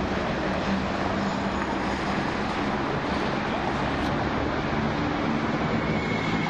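Steady city street traffic noise: a continuous rush of passing cars with a low engine hum.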